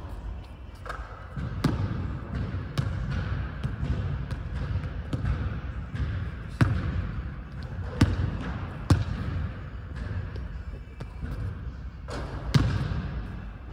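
A basketball bouncing on a hardwood gym floor: single sharp bounces a second or more apart, each ringing briefly in the large hall, over a steady low rumble.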